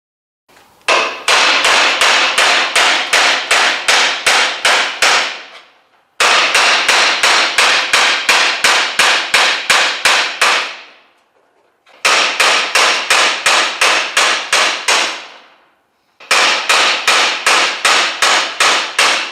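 A hand hammer driving a spot weld buster chisel into sheet steel to break the spot welds holding a 1966 Chevelle's trunk brace to the drip rail. It strikes in four runs of rapid, even blows, about three to four a second, with short pauses between runs.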